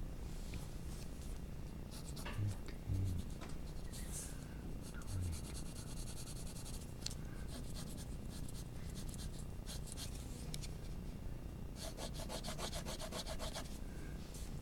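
Graphite pencil shading on paper: scratchy rubbing strokes, with two spells of quick back-and-forth hatching, about six seconds in and again near the end. A few soft low bumps come a few seconds in.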